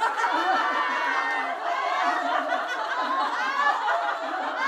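A laughter yoga group laughing together on cue, many voices overlapping in a steady, continuous din of deliberate exercise laughter.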